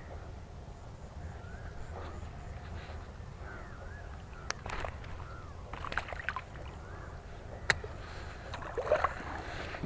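Handling a freshly landed fish at the water's edge: a few sharp clicks and light water sloshing over a steady low hum.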